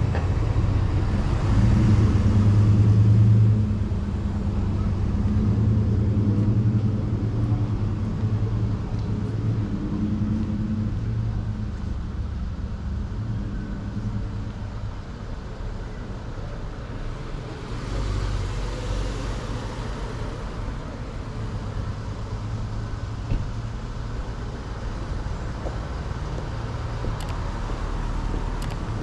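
Street traffic: cars driving past at low speed over a steady low rumble, the loudest passes coming about two seconds in and again about two-thirds of the way through.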